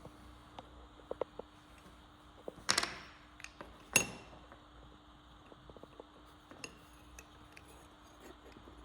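Small hard objects being handled on a workbench: light clicks, then two sharp clinks about a second apart, the second ringing briefly like struck metal.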